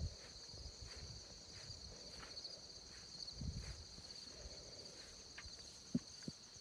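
Steady high-pitched chorus of insects trilling in a field, with soft footsteps on grass underneath and two short clicks near the end.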